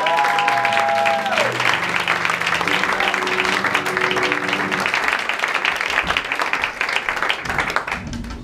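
Audience applauding at the end of a sung number. The final held sung note ends about a second in, and a few held accompaniment notes sound under the clapping. The applause dies away near the end.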